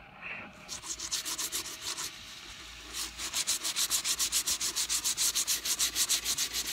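Hand sanding on the boat's wooden rail: quick, even back-and-forth scratching strokes, about eight a second, with a short pause about two seconds in.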